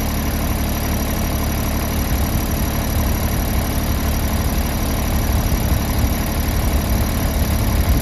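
Small compact tractor's engine running steadily at a low idle, growing slightly louder in the second half.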